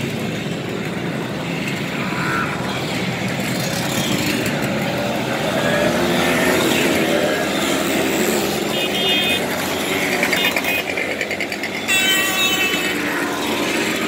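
A column of Simson two-stroke mopeds and scooters (Schwalbe and S51 types) riding past one after another, their small single-cylinder engines running together in a continuous buzz that rises and falls as each one passes. Short horn beeps sound about nine seconds in and again about twelve seconds in.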